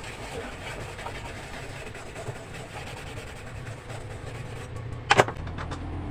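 A brush scrubbing a radio's circuit board with thinner, a faint rubbing, over a low steady hum, with one sharp knock about five seconds in.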